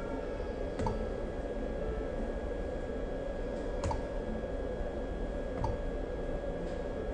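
Steady electrical hum with a faint constant high whine, broken by three sharp, isolated clicks about a second, four seconds and nearly six seconds in.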